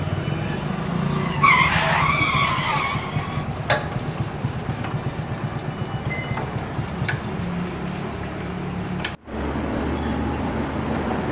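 Motorcycle engine running with a fast, even pulse as the bike rides slowly and pulls up. About one and a half seconds in, a wavering high-pitched sound rises over it for a couple of seconds. The engine sound cuts off abruptly about nine seconds in and a steady low hum follows.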